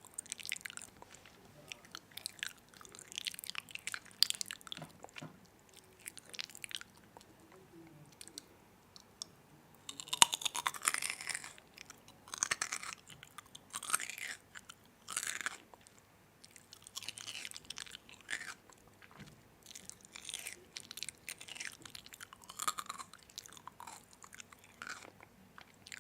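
Close-up chewing of crunchy food: bursts of crisp crunching come in clusters, with quieter pauses between bites.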